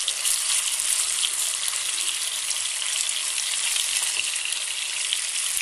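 Spice-marinated fish pieces shallow-frying in oil in a pan, sizzling steadily with fine crackles.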